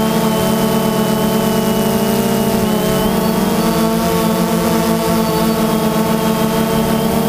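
DJI Phantom quadcopter's electric motors and propellers running steadily in flight, heard close from the onboard GoPro: a loud, even hum of several rotors beating slightly against each other, with a thin high whine, the pitch shifting a little about three seconds in.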